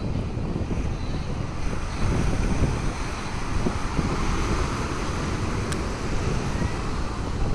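Wind buffeting the microphone in low, gusty rumbles over the steady wash of ocean surf breaking on the beach.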